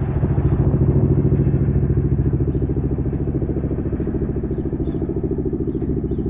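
Boeing CH-47 Chinook tandem-rotor helicopter flying past, its rotor blades beating in a rapid, even throb over the turbine engines. Loud and steady, swelling slightly in the first second.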